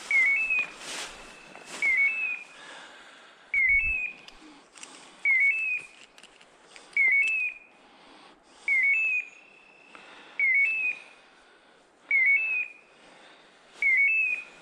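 Hunting-dog beeper collar in point mode, sounding a short two-note electronic chirp at an even pace of about one every 1.7 seconds. It signals that the dog has stopped moving and is holding a point.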